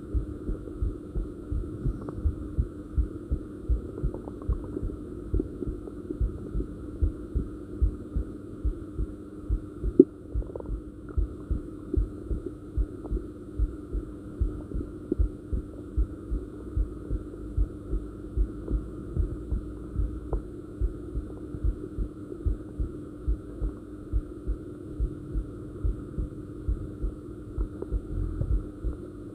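A person's heartbeat: regular low thumps at roughly 85 beats a minute over a steady hum. A single sharp knock about ten seconds in is the loudest sound.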